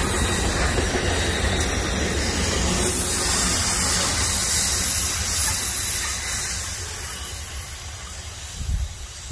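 Freight train rolling past: a steady low rumble of wheels on rail with a hiss over it, fading over the last couple of seconds.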